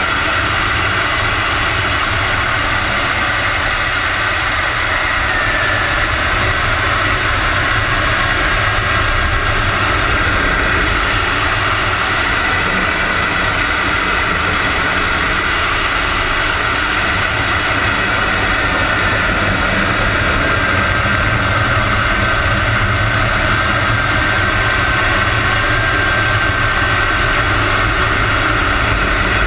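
Onboard sound of a radio-controlled scale Aermacchi MB-339 model jet in flight: the steady whine of its jet engine over a constant rush of air, with the high pitch dipping and recovering a couple of times.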